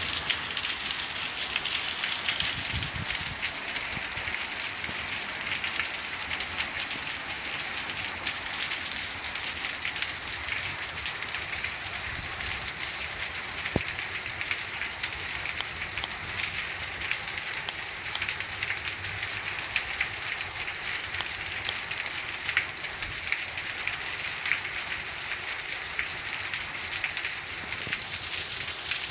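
Steady rain falling, a constant hiss scattered with many small individual drop hits.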